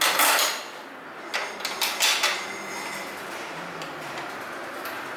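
Metal clanks and knocks of a slip-on exhaust muffler being worked onto a motorcycle's link pipe: a loud clatter right at the start, a quick run of sharp knocks about one and a half to two seconds in, then only low workshop background.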